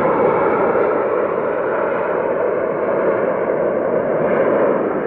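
Steady jet roar from an Airbus A330-343's Rolls-Royce Trent 700 engines as the airliner rolls out down the runway after touchdown, easing slightly near the end.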